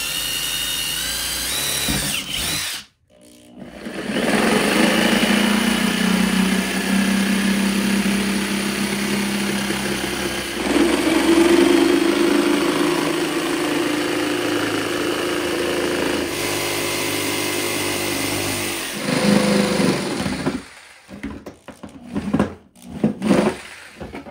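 A drill runs briefly, boring a corner hole through a plastic rear door trim panel. After a short pause a jigsaw cuts through the plastic panel for about sixteen seconds, its pitch shifting partway through. Near the end come a few irregular knocks and rattles as the cut-out piece is worked loose.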